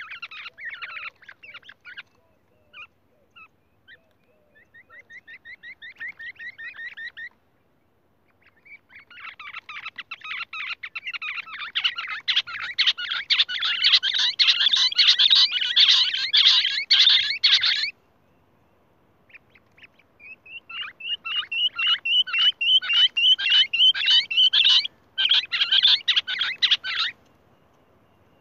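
A game bird, the kind sold as a 'Lahori', calling in fast trains of sharp, repeated notes. The calls come in four bouts with short pauses between them, and the longest and loudest bout is in the middle.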